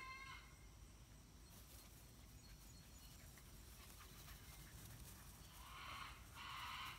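Near silence with faint outdoor ambience. The end of a Pyredoodle puppy's high whine trails off just at the start, and two short hissy rustles come near the end.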